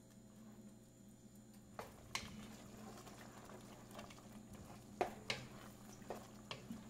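Faint stirring of a thick, creamy gravy in a nonstick pot with a wooden spatula, with a few light taps and scrapes of the spatula against the pot around two seconds in and again from about five seconds on.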